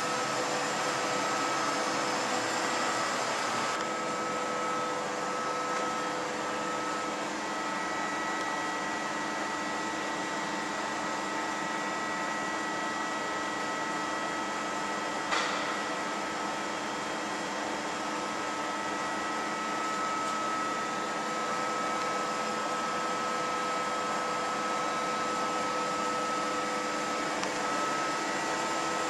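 Okuma LB 200 CNC lathe switched on, humming steadily with several steady whining tones over a hiss. There is one sharp click about halfway through.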